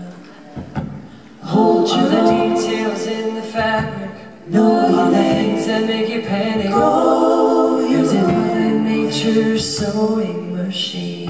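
Several voices singing together in harmony, with little instrumental backing. It starts quietly on a low held note, then swells loud about a second and a half in, dips briefly, and stays loud from about four and a half seconds in.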